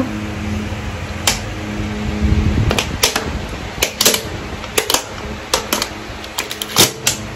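Drinking from a plastic water bottle: irregular sharp clicks and crackles of the bottle and the swallowing, coming thickly after the first few seconds, over a steady low hum.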